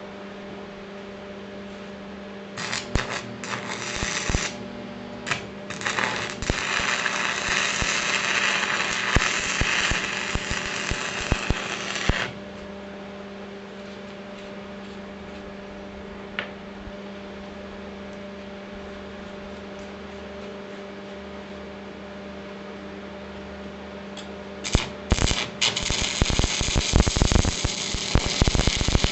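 Electric arc welding crackling and spitting in two bouts of tack welding on steel: from about two and a half seconds in to about twelve seconds, then again from about twenty-five seconds in. A steady electrical hum runs underneath throughout and is all that is heard between the bouts.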